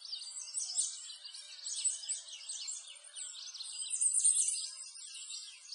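Dense chorus of many small birds chirping and twittering, high-pitched and without a break, loudest a little after the middle.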